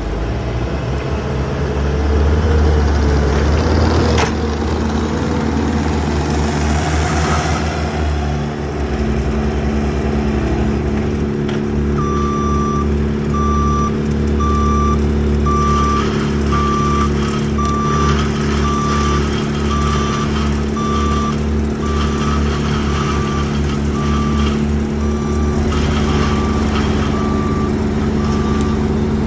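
Diesel engine of a Bobcat compact track loader running close by, with a sharp knock about four seconds in. From a little under halfway, a reversing alarm beeps steadily at about one and a half beeps a second over the engine.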